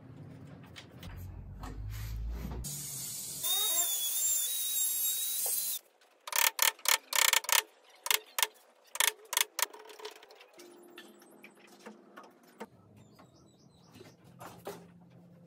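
A run of a dozen or so sharp knocks as a wood chisel is struck with a wooden block, cutting a recess into a pine crib rail. Before the knocks there are a few seconds of loud hiss with a wavering squeal; a few faint taps follow them.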